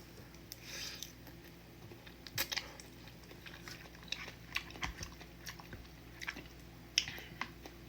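A person chewing a mouthful of udon noodles close to the microphone, with scattered short wet mouth clicks and smacks.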